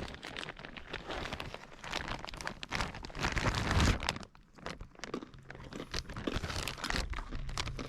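Irregular crunching, scraping and rustling of a hiker scrambling on dry dirt and rock, with clothing and gear rubbing close to the microphone; loudest about three to four seconds in, then a brief lull.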